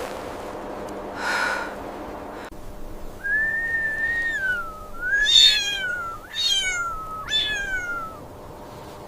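Kitten meowing in thin, high calls: one long drawn-out call, then three shorter meows that each start sharply and fall in pitch. A brief rush of noise comes about a second in.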